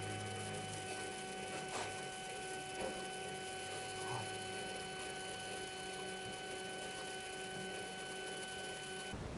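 Faint steady electrical hum with a thin, even whine and a few soft clicks; it cuts off suddenly near the end.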